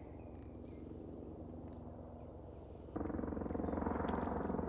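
A faint, steady, low pulsing hum like a small motor. About three seconds in it is joined by louder splashing as a hooked mullet thrashes at the surface beside the landing net.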